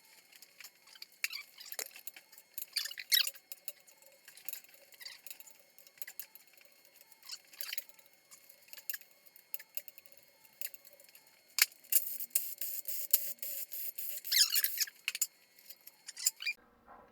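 Hand tools and loose metal engine parts clicking, clinking and scraping as a Honda K20 engine is taken apart, in irregular bursts with a busier stretch near the end.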